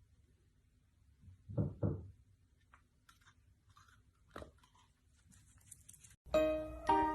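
Two dull thumps, faint crackling clicks and one sharp knock, then piano music starts about six seconds in.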